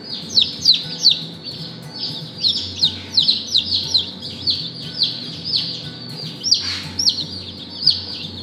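A brooder full of baby chicks peeping: many short, high, downward-sliding peeps overlap, several a second. There is a brief rustle about six and a half seconds in.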